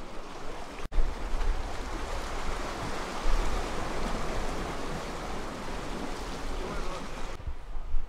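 Sea waves washing against a rocky shore, a steady rush of surf with wind rumbling on the microphone.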